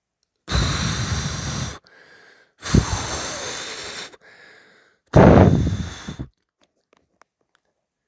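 A person blowing three long, hard puffs of breath at a paper smoke detector to set it off, with quieter in-breaths between the puffs.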